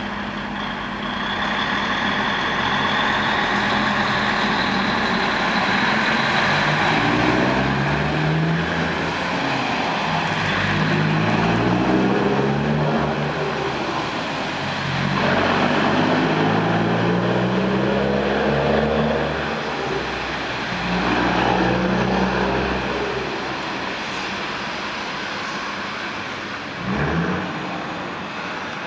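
DAF truck's diesel engine accelerating hard as the truck pulls away. The revs climb and drop back with each of several upshifts.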